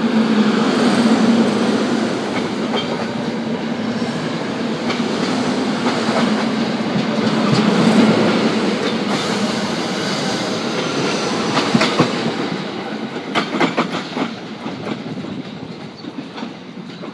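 SEPTA Silverliner IV electric commuter train rolling past close by, with a steady rumble and hum. Its wheels clack over rail joints in a run of sharp clicks a little after the middle, then the sound fades away.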